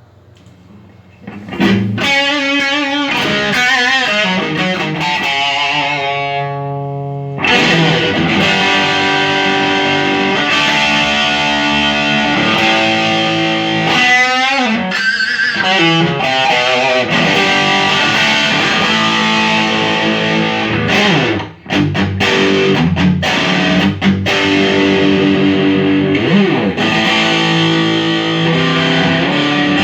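Electric guitar played through a Fender Champion 30 combo amp with distortion and effects, a sound test of the amp after repair of its broken potentiometer shafts. Playing starts about a second and a half in, with wavering notes in places and a short break around two-thirds of the way through.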